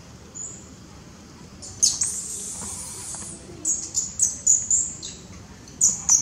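Infant macaque's high-pitched squeals: one long squeal about two seconds in, then a quick string of short squeals. They are the distress cries of a baby being weaned off the nipple.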